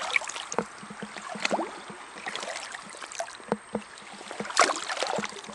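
Water sloshing and splashing in shallow reedy lake water around a wading angler, in irregular bursts with small knocks, the loudest burst near the end.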